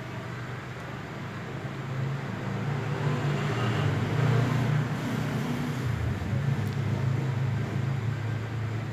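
A low engine rumble that swells about two seconds in and eases off near the end.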